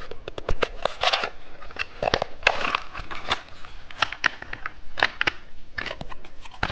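Hands opening the plastic packaging of a candy toy: crinkling wrapper and a string of sharp plastic clicks and snaps.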